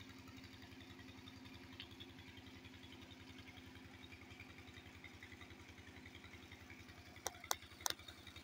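A small engine running steadily, faint, with an even low beat of about ten pulses a second. A few sharp clicks sound near the end.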